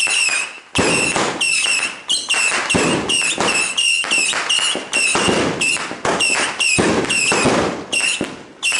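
Aerial fireworks going off in rapid succession: sharp bangs about two a second, each followed by a short high tone, with a brief lull near the end.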